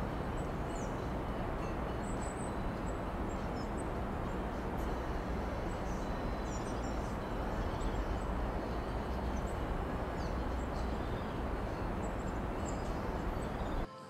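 Steady rushing background noise with faint, scattered bird chirps, cutting off abruptly just before the end.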